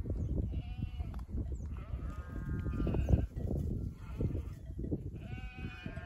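A flock of sheep bleating: three calls about a second or two apart, over a steady low rumble.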